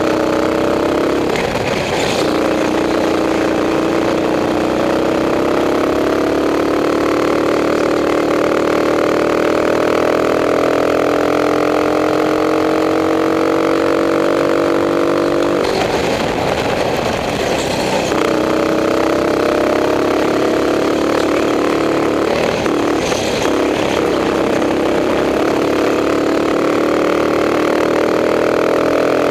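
Racing kart engine under hard throttle, heard from the kart itself: its note climbs steadily in pitch along a straight, breaks off for a couple of seconds about halfway as the driver lifts for a corner, then picks up and climbs again.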